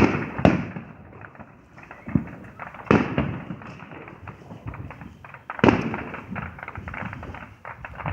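Consumer fireworks going off: two sharp bangs in quick succession at the start, another about three seconds in and another just under six seconds in, each trailing off, with constant crackling between.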